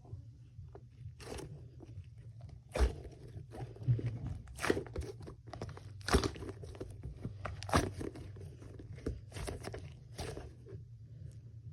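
Packaging crinkling and crackling as it is handled and opened, in irregular short crackles, the loudest about three, six and eight seconds in.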